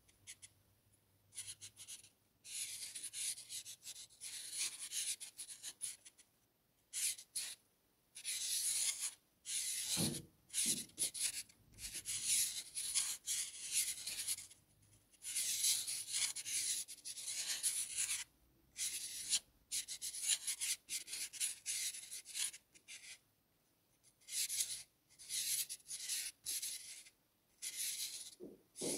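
Black marker pen scratching across paper in a string of drawing strokes: hissy scrapes from quick flicks to runs of a couple of seconds, with short pauses between them.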